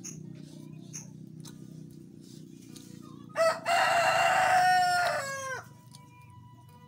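A rooster crows once, about three and a half seconds in: a short opening note followed by a long held call that drops in pitch at its end.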